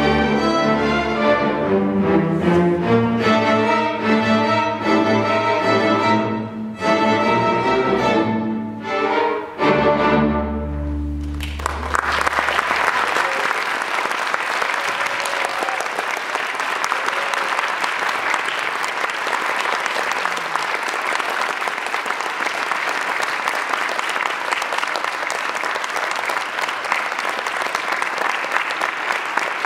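A school string orchestra plays the closing bars of a piece in quick, separated notes, broken by a couple of short pauses, and ends on a loud low held chord about eleven seconds in. Audience applause follows and goes on steadily.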